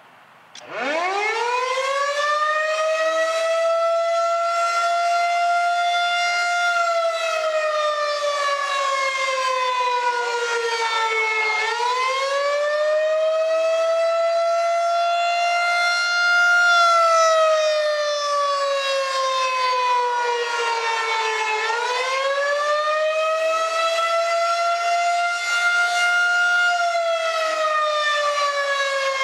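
Rotating outdoor warning siren sounding a tornado drill. It winds up sharply about half a second in to a loud, steady wail, and twice its pitch sags slowly and snaps back up, about ten seconds apart.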